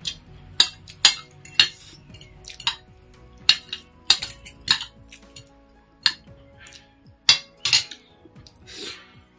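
Metal fork clinking and scraping against a ceramic plate as noodles are twirled up, in a quick, irregular run of sharp clinks.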